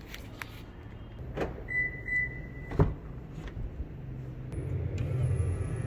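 Clicks and clunks from a 2022 Toyota Hilux being unlocked with its smart key and its driver's door opened, the loudest clunk about three seconds in, just after a steady high beep of about a second. Past the middle a low hum with a faint high whine sets in.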